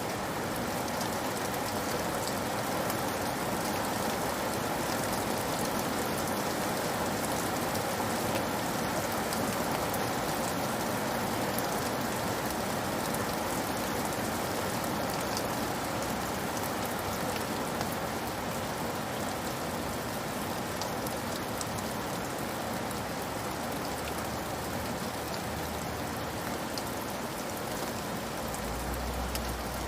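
Steady rain falling on a roof, with many separate drop ticks over a continuous hiss. A low rumble comes in near the end.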